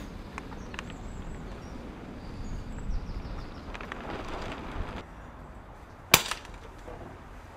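Air Arms S410 pre-charged pneumatic air rifle firing a single shot about six seconds in, a short sharp crack over a low wind rumble on the microphone.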